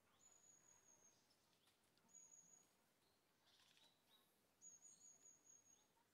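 Near silence with faint, high-pitched bird chirps: three short trills, the longest about a second, near the end.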